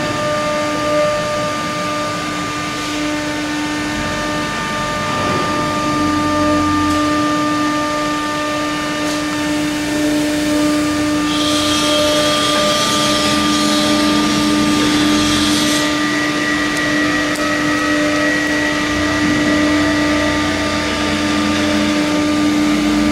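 Two spindles of a twin-head CNC router running while their bits cut grooves in a board: a steady whine of several tones over the noise of the cutting. A hiss joins in for about four seconds around the middle.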